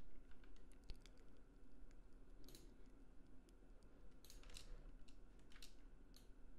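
Faint, scattered clicks of a computer mouse and keyboard, a handful of short ticks over a few seconds, over quiet room tone.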